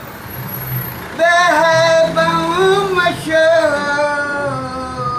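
A man's voice, unaccompanied, singing the opening of a Punjabi Sufi kalam: a long held, wavering note that comes in about a second in and slides slowly down near the end. A low traffic rumble runs underneath.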